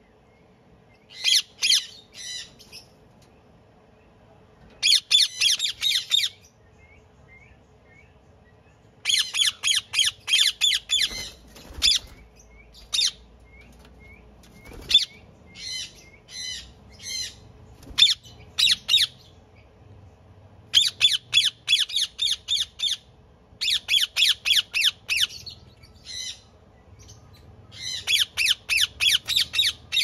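Indian ringneck parakeets squawking: runs of rapid repeated calls, several a second, separated by single calls and short pauses.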